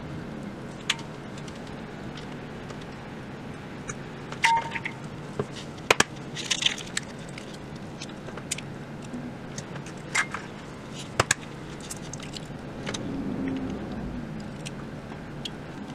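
Eggs being cracked and separated by hand: scattered sharp clicks and taps of eggshell against the rim of a glass bowl and shell against shell, about a dozen in all, over a steady low hum.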